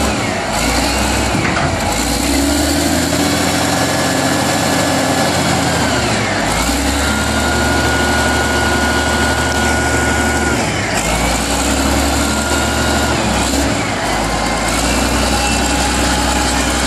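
CAT 980B wheel loader's diesel engine running as the bucket is raised and lowered. The engine note shifts every few seconds, with higher tones that dip and rise in pitch.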